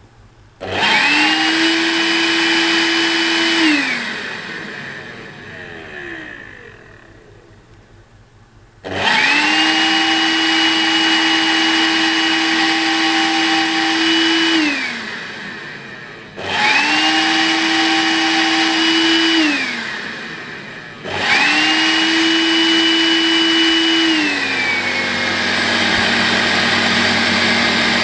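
A Makita CL182FD 18V cordless stick vacuum's motor is switched on four times. Each time it spins up to a steady high whine, runs a few seconds and winds down with falling pitch. On the last run it drops to a lower speed and keeps running. The cleaner has developed an abnormal noise after about 200 hours of daily use.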